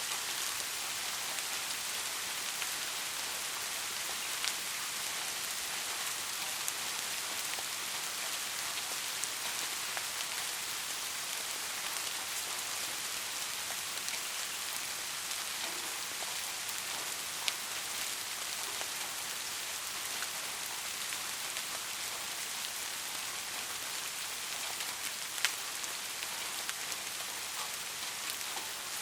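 Steady rain falling, an even hiss with a few louder single drops ticking out now and then.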